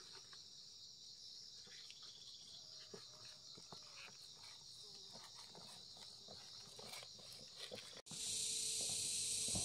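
Steady high-pitched chorus of insects, with a few faint ticks and rustles. About eight seconds in the sound cuts off abruptly and a louder, wider insect drone takes over.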